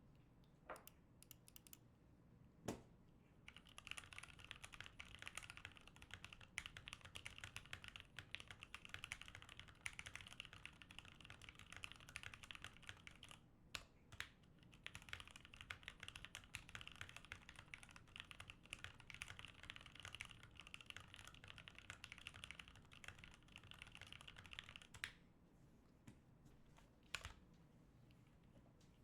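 Typing on a GMMK Pro mechanical keyboard with lubed Milky Gateron Yellow linear switches. A few single keystrokes first, then fast continuous typing for about twenty seconds with a brief pause midway, and one last keystroke near the end.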